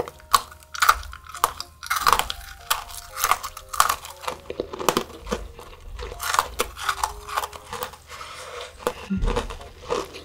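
Close-up crunching and chewing of chocolate-coated Pepero biscuit sticks, with many short, sharp crackly bites throughout.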